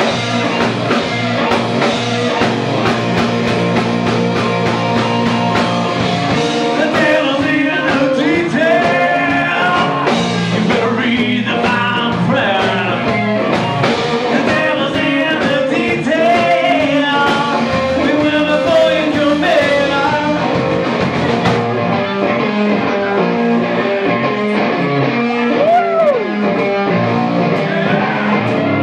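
Live blues-rock band playing: a harmonica cupped to a handheld microphone wails and bends notes over electric guitar.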